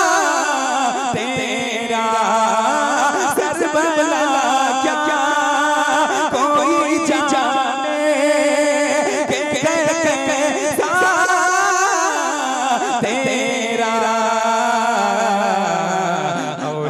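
A man singing a naat (Urdu devotional poem) into a microphone, in long held notes that waver and curl with ornaments, without words breaking into speech.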